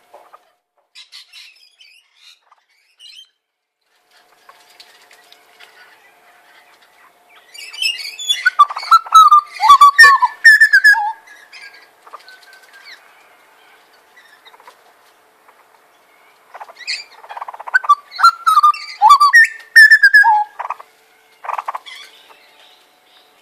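Grey butcherbirds singing in two loud bouts of fluted, piping notes that glide and drop in pitch, about eight seconds in and again around seventeen seconds in, with quieter scattered calls between: territorial song.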